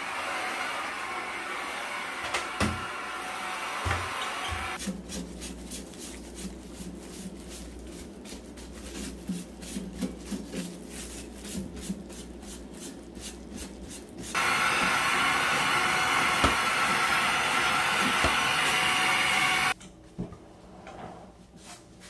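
Cordless stick vacuum running over a wooden floor, cutting off abruptly about five seconds in. Then soft rubbing with light knocks as a gloved hand wipes a refrigerator's back vent grille. A louder steady hiss follows and stops suddenly near the end, followed by a few knocks.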